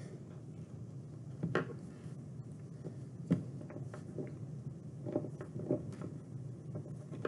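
Faint handling sounds of hands pressing and rolling a lump of polymer clay flat on paper over a wooden tabletop, with a few soft knocks, the clearest about one and a half and three seconds in, over quiet room hum.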